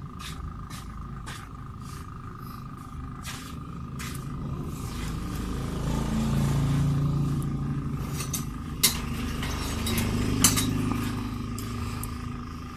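Small metal clicks and clinks from a greasy CV joint's balls and cage being handled and fitted onto a driveshaft, two of them sharper than the rest in the second half. Under them a low rumble swells through the middle and fades.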